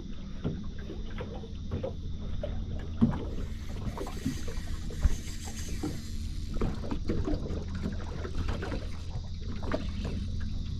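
Small waves lapping against a small aluminium boat's hull over a low, steady rumble, with two sharp knocks about three and five seconds in.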